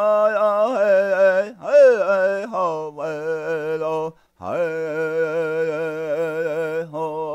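A man singing a Lakota chant alone, without drum: long held notes with a wavering pitch, in phrases broken by short pauses for breath.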